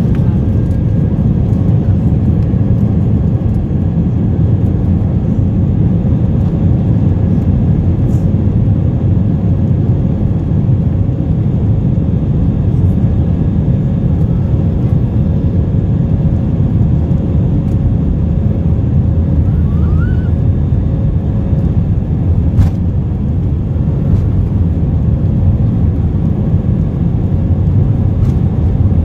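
Steady, loud low rumble of an Airbus A319-132's IAE V2500 engines and airflow, heard from inside the passenger cabin, with a faint steady whine; a single sharp click about two-thirds of the way through.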